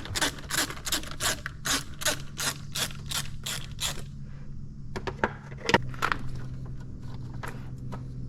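Hand tools working on a car's intake parts: quick, evenly spaced ratcheting clicks, about three a second, for the first four seconds, then scattered clicks and scrapes with one sharp knock, over a steady low hum.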